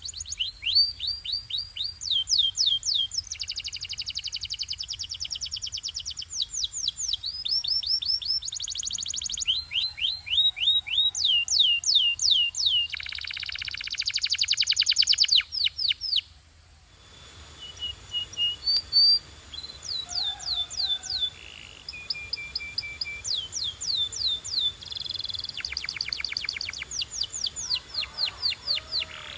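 Canary singing: fast trills of repeated high, sweeping notes, one phrase running into the next. About halfway through the song cuts off for a moment, then resumes slightly quieter.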